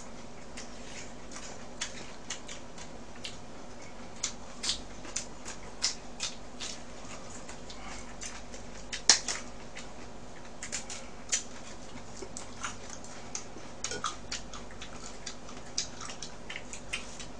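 Eating sounds: irregular wet smacks and clicks of chewing, with light taps of chopsticks, one louder smack about nine seconds in, over a steady low background hum.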